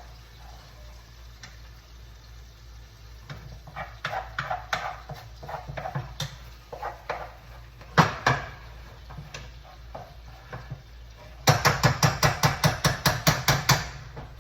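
Cooking utensil knocking and scraping in a pan while stuffed chicken breasts are flipped: scattered clinks, one loud knock about eight seconds in, then a quick run of taps, about six a second, near the end.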